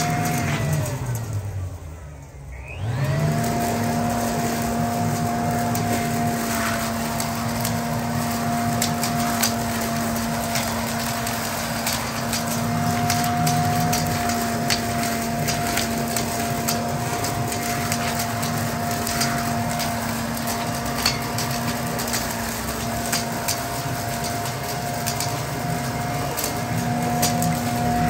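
Toro Ultra electric blower vac in vacuum mode, its motor and impeller whining steadily as it sucks up dry leaves into its bag, with many short clicks and rattles from leaves and sticks going through. About a second in the whine winds down with a falling pitch, then it spins back up about three seconds in and runs on steadily.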